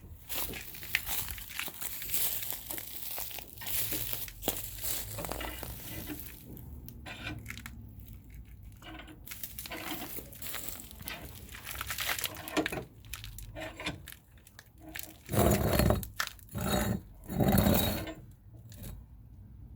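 Rustling, crinkling and clattering as things are handled and moved about, with two louder thumps near the end.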